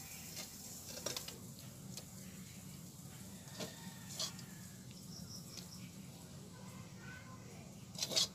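Steel spatula scraping and clinking against a metal pan and a steel plate while thick, sticky halwa is scooped out and piled up: a few scattered scrapes and taps, the loudest near the end, over a low steady hum.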